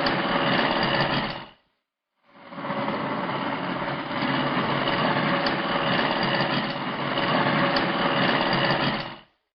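A steady mechanical buzzing whir that cuts out about a second and a half in, comes back about a second later and runs on until just before the end.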